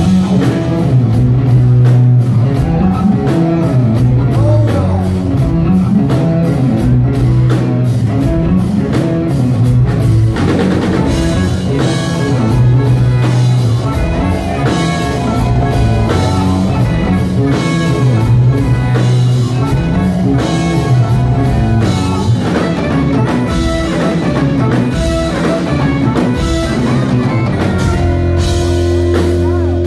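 Live rock band playing: electric guitars, drum kit and keyboards over a loud low line that moves from note to note, heard from the audience.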